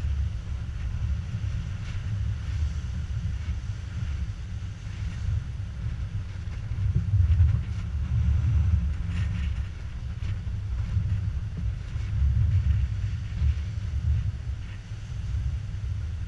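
Wind buffeting the microphone, a low uneven rumble, over faint surf washing against the rocks that swells now and then as waves break.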